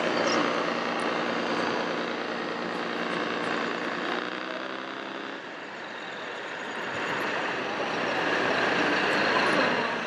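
Radio-controlled scale trucks and construction machines running, with a steady engine-like drone that breaks off about halfway, over a broad mechanical noise that grows louder near the end.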